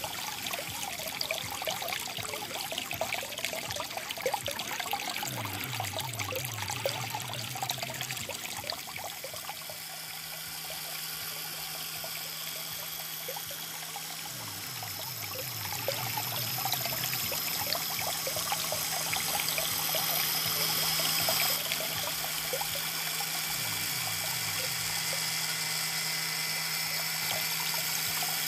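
Water gushing from a miniature axial-flow pump's outlet pipe into a shallow concrete basin and spreading through the flooded plant bed, with a low steady hum joining about nine seconds in.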